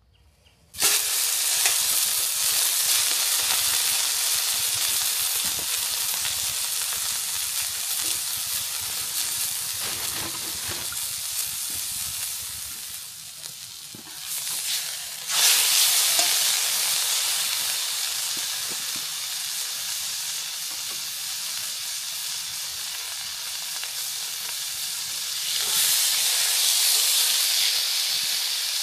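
Beef steak sizzling in oil on a hot steel cooking disc. The sizzle starts suddenly about a second in and fades somewhat. It jumps back up sharply about halfway through and swells again near the end.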